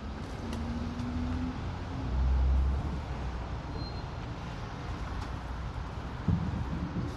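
City street traffic: a steady low rumble of passing cars and buses, swelling as a heavier vehicle goes by a couple of seconds in.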